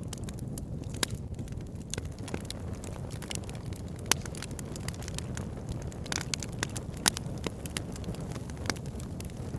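Wood campfire burning, with firewood crackling and popping irregularly over a steady low rumble; sharper pops about a second in, about four seconds in and about seven seconds in.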